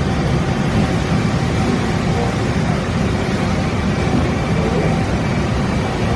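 Steady, loud machine drone from a running Okuma Multus U3000 CNC mill-turn and the machinery around it, heavy in the low end, with a faint steady whine over it.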